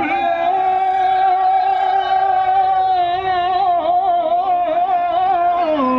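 Assamese Bihu song: a single voice holds one long drawn-out note with no drums under it, wavering a little in the middle and dropping to a lower note near the end, the drawn-out call that opens a Bihu verse.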